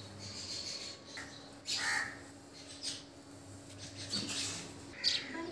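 Birds calling: a few short calls about two seconds in and again near the end, over a faint steady hum.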